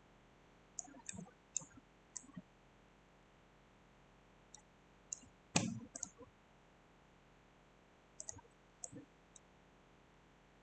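Computer mouse clicking in scattered short runs of a few clicks, with one louder click about five and a half seconds in.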